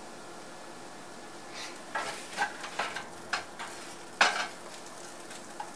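A wooden spatula stirs and scrapes egg fry with onion in a stainless steel pan over a faint steady sizzle. The scrapes are short and irregular and start about a second and a half in. The loudest comes a little past four seconds. The constant stirring breaks the egg into crumbles and keeps it from sticking.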